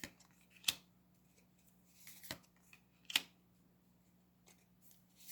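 Lenormand cards being handled and laid down on a table: three short, sharp clicks, the loudest about three seconds in.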